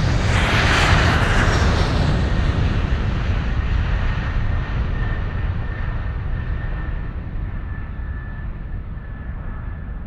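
Deep rumble with a rushing whoosh that swells about a second in, then slowly fades. A faint thin steady tone sits above it from about four seconds on.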